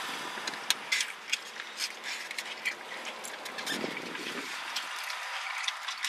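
Quiet eating sounds: forks clicking and scraping in takeout food boxes with scattered light clicks, over a steady hiss in the car cabin.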